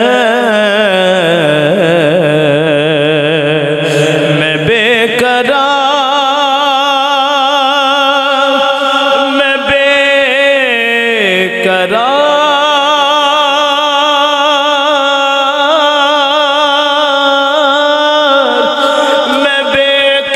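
A man reciting an Urdu naat through a microphone, drawing out long ornamented notes with a wavering vibrato. The pitch glides down near the start and dips and climbs again about halfway through.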